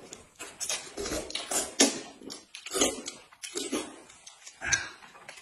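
Two people slurping and chewing wide mianpi noodles: several loud wet slurps, one after another.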